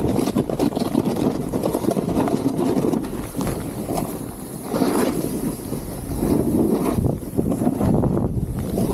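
Gnu Headspace snowboard sliding and scraping over snow, a rough hiss that swells and eases several times as the board turns, with wind on the microphone.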